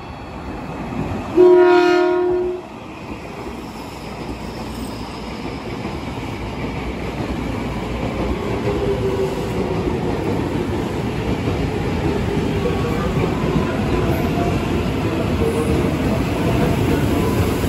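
KRL Commuter Line electric train sounding one horn blast, a little over a second long, as it approaches, then running past the platform with steady rail and wheel noise that grows louder as the cars go by.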